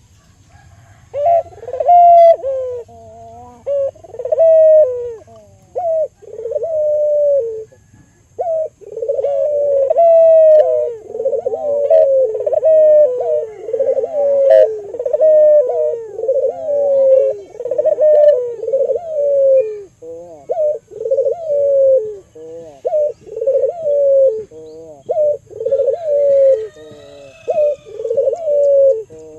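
Albino ringneck (puter) dove cooing over and over in a lively calling bout, its coos following close on one another and at times overlapping, with a brief pause about eight seconds in. Faint chirps from another small bird come in now and then.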